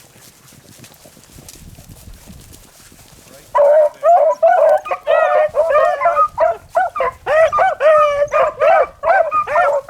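Beagles baying in a rapid, loud string of yelping cries that breaks out about a third of the way in, after a few seconds of faint rustling. The pack is running the wounded rabbit.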